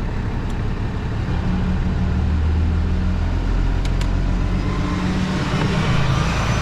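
Tow truck engine running as the truck pulls up, with a couple of light clicks about half a second and four seconds in.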